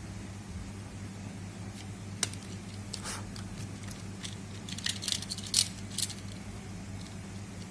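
Scattered light clicks and clinks of small tools and parts being handled on a laptop under repair, with a quick cluster of them about five to six seconds in, over a steady low hum.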